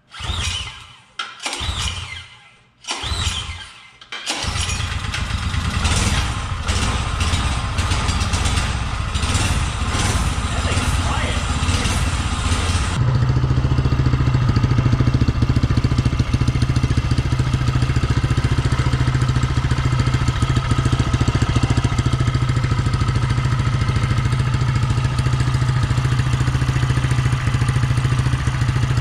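Small LCT 179cc 4.8 hp snowblower engine on a minibike being pull-started: a few tugs of the recoil starter, and it catches about four seconds in. It runs on, then settles to a steady idle.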